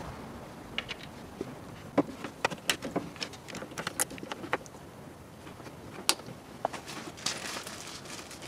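Plastic push-pin clips pressed into a car's plastic radiator cover panel, with the panel handled around them: a scatter of short, sharp clicks and taps at irregular intervals.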